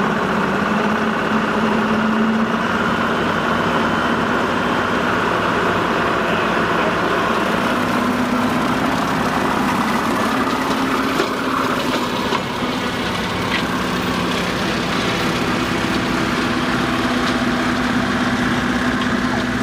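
LS MT240E compact tractor's diesel engine running steadily under load, its rear PTO turning a brush hog (rotary cutter) through tall grass.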